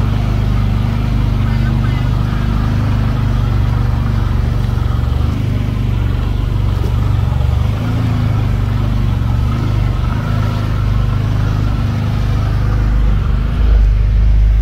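Can-Am Defender Limited side-by-side's Rotax V-twin engine running steadily at low speed in low range as it crawls over a rocky trail, growing a little louder near the end.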